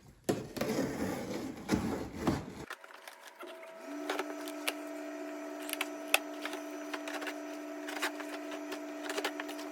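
Cardboard packaging being handled and torn open, scraping and rustling. After a cut, a small motor starts with a short rising whine and runs at a steady pitch, with scattered clicks over it.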